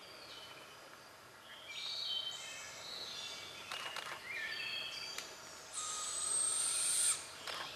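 Woodland birds calling and singing, with short high whistled notes at several different pitches. A few faint clicks can be heard. About six seconds in comes a louder, high, hissy call lasting a little over a second.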